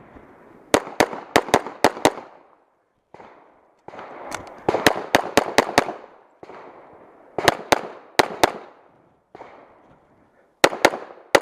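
Pistol shots from a .40 caliber STI 2011 fired in quick strings: four bursts of about three to six rapid shots each, separated by pauses of a couple of seconds as the shooter moves between targets.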